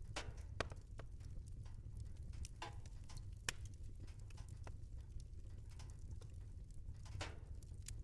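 Wood fire crackling: irregular pops and snaps over a steady low rumble, with a sharper pop about half a second in and another near the middle.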